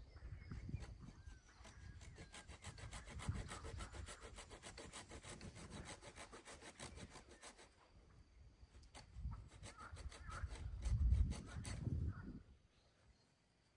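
Hand saw cutting wood with a fast, even run of rasping strokes, a brief pause, then a few heavier knocks before it stops near the end.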